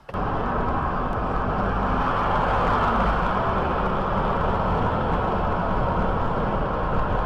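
Steady road and wind noise inside a car cruising at about 70 mph on a highway: an even rush of tyre and wind noise with a low rumble underneath, starting abruptly at the start.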